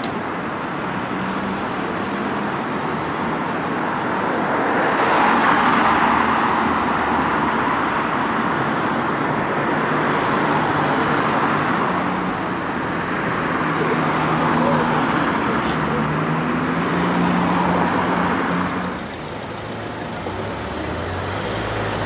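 Busy road traffic: cars driving past, with a steady rush of engine and tyre noise that swells several times as vehicles pass close and ebbs between them.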